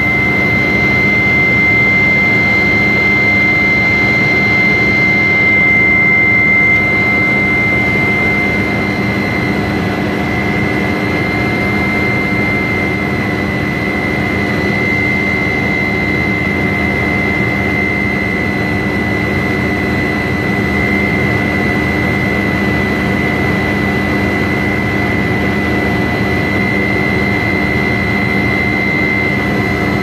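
Aircraft engine running steadily in flight, a constant rush of engine noise with a steady high whine over it.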